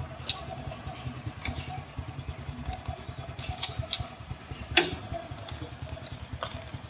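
A vehicle engine running with a steady low throb, with scattered sharp knocks and rattles, the loudest a little before five seconds in.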